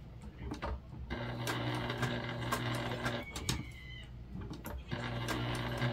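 Electric sewing machine stitching slowly along a curve in two short runs. The first starts about a second in and stops about three seconds in; the second starts near the end. A few light clicks come in the pause while the fabric is turned.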